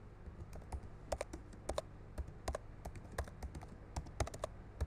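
Typing on a computer keyboard: quiet, irregular key clicks, about four or five a second with short gaps, over a faint steady low hum.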